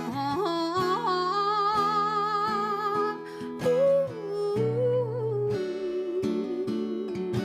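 A woman's voice holding long, wordless sung notes with a wavering vibrato, over a strummed acoustic guitar.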